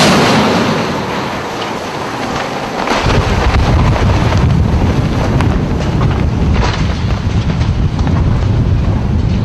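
Strong storm wind buffeting the microphone: a loud, rushing noise with heavy low rumble that eases for a couple of seconds near the start and then comes back in gusts.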